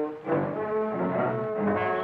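Orchestral background score: several instruments hold notes together, moving to new notes about every half second.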